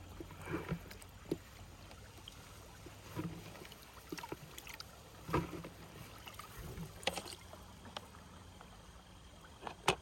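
Shallow stream water splashing and sloshing in short, irregular bursts, with a few sharp clicks, as caught small fish are tipped back into a still pool.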